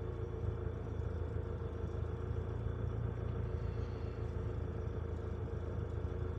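Heavy diesel engine running steadily, a low even drone heard from inside a truck cab.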